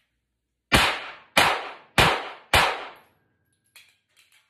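Four 9mm pistol shots from a Glock 43X, a little over half a second apart, each a sharp crack that rings out briefly. Near the end come a few light clicks and a clatter as the magazine is dropped out of the pistol for a reload.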